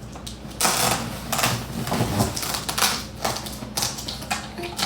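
Irregular clattering and knocking of kitchen utensils and dishes, a run of sharp clicks and short scrapes that starts about half a second in.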